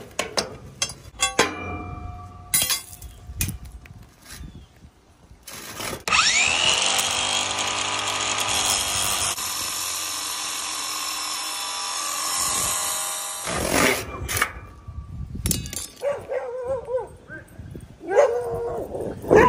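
Scattered knocks and clanks, then a DeWalt angle grinder with a cut-off wheel spins up about six seconds in and cuts through a steel rebar bar, running steadily for about seven seconds before stopping. Dogs barking over the last few seconds.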